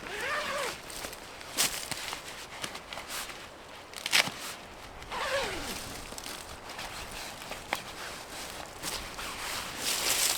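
Footsteps moving about the forest floor with scattered sharp cracks of sticks and twigs. Two short pitched sounds slide downward, one about half a second in and one about five seconds in.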